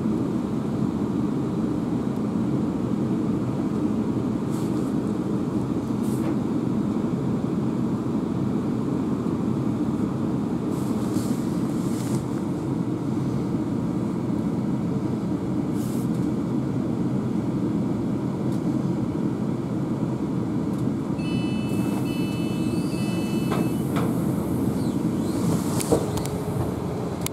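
Steady low hum inside a Class 350 electric multiple unit's passenger saloon, with a few light clicks. About three-quarters of the way through comes a short run of repeated electronic beeps, the door-closing warning.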